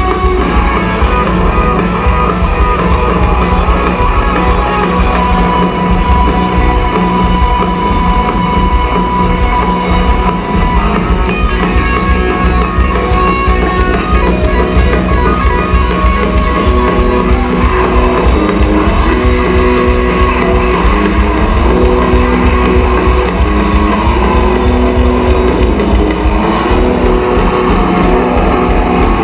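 Live rock band playing loud: electric guitars ringing out over bass and drum kit.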